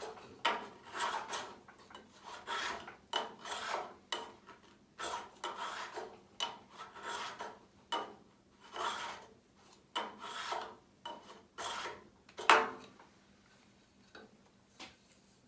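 Small Stanley 12-101 trim plane with a freshly sharpened blade being pushed across wood in short, rasping strokes, about one a second, as the reset blade is tried out. A louder knock comes near the end, and then the strokes stop.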